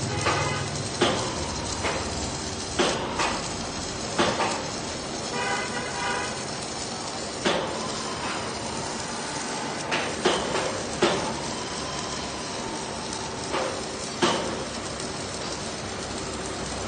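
Welding-shop work: a steady hiss with sharp knocks at irregular intervals of one to two seconds, and a brief pitched tone about five seconds in.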